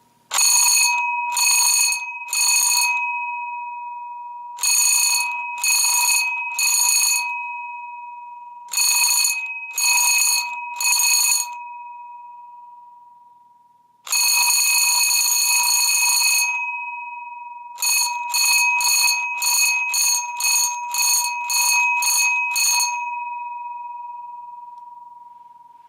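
Fire alarm bell ringing in pulses: three groups of three rings, then one continuous ring of about two seconds, then about ten quick rings at roughly two a second. Each ring leaves a clear tone hanging that fades slowly.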